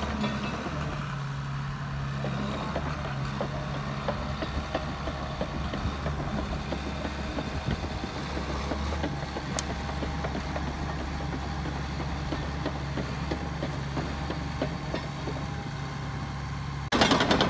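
Bulldozer's diesel engine idling steadily, with a low drone and a fast light clatter. Near the end a sudden, much louder burst of noise breaks in.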